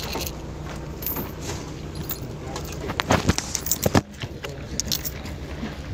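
Clatter and knocking from objects being handled, a run of sharp clicks that are loudest about three to four seconds in, over a steady low rumble.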